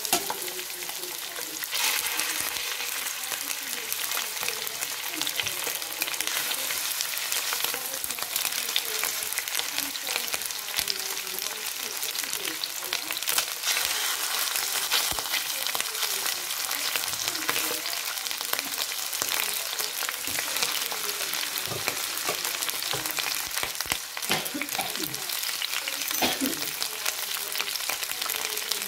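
Chicken drumsticks frying in hot oil in a stainless steel pan: a steady, dense sizzle and crackle that grows louder about two seconds in.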